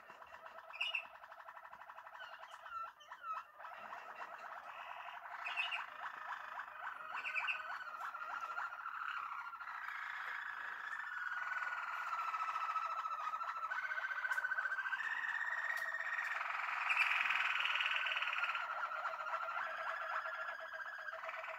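Caged domestic canaries singing a long unbroken song of rolling trills and held whistled notes, changing from one phrase to the next every second or two and growing louder after the first few seconds.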